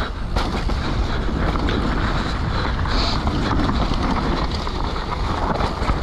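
Wind rushing over the microphone as a downhill mountain bike descends fast, with its tyres running over dirt and rocks and the bike clattering in many quick small knocks.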